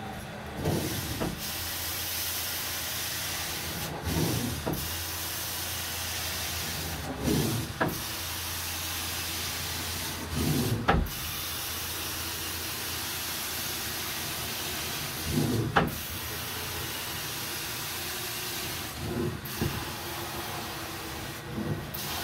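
Carpet-cleaning extraction wand drawn over carpet in repeated strokes, against the steady hiss of the machine's suction. About every three to four seconds a stroke brings a louder swish that ends in a sharp click.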